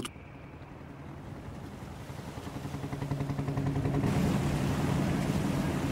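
Sea water rushing around a ship's bow as it moves under way, with a low steady drone under it. The sound slowly swells and grows fuller and louder about four seconds in.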